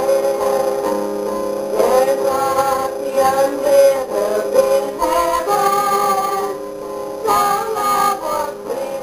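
Acoustic guitars played with a voice singing over them.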